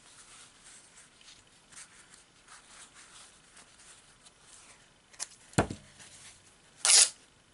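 Fabric scraps being handled and rustled on a felt work mat: soft, uneven rubbing, then a sharp thump past the middle and a brief, loud swish of cloth near the end.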